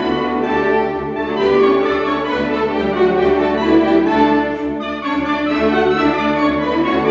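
Large saxophone ensemble, saxophones of several sizes including baritone, playing sustained, layered chords together.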